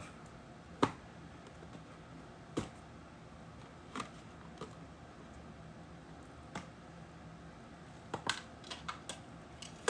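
Scattered light clicks and knocks of handling, a second or more apart, then a quicker run of several taps near the end.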